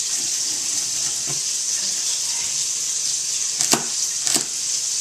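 Sausage sizzling steadily as it fries in a pot, with two sharp knocks near the end, typical of a knife striking a cutting board while chopping celery.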